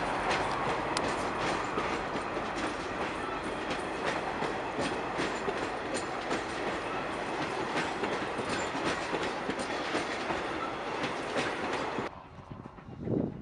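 Passenger coaches rolling past on jointed track, the wheels clicking over the rail joints in a steady clatter. The sound cuts off suddenly near the end.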